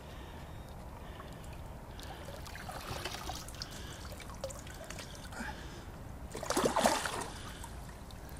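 Water trickling and dripping off a large mirror carp and its wet sling as it is lifted from shallow lake water. About six and a half seconds in, a louder splash as the carp goes back into the water on release.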